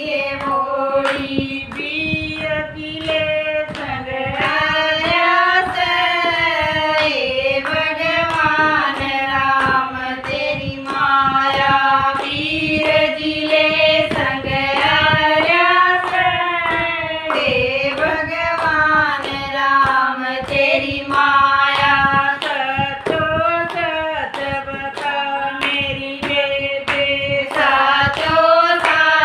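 Women singing a Haryanvi jakdi folk song together, keeping time with steady hand claps.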